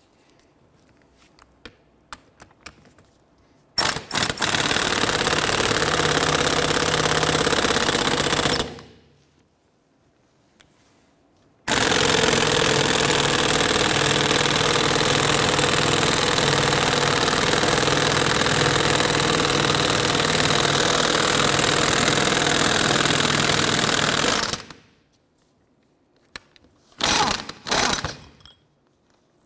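Air impact wrench hammering on the screw of a C-frame ball joint press, forcing the lower ball joint out of a Ford Ranger steering knuckle. It runs in two long stretches of about five and thirteen seconds, then gives two short bursts near the end.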